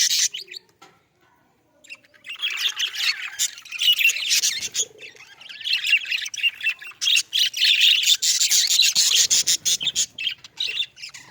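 A flock of budgerigars chirping and chattering, many quick overlapping chirps at once. The chatter drops out briefly about half a second in and starts again about two seconds in.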